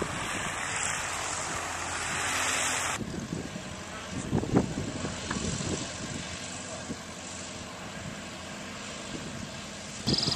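Schweizer 300 light piston helicopter running on the ground, its engine and rotor turning steadily before take-off. Wind buffets the microphone for the first three seconds, and there is a sharp knock about four and a half seconds in.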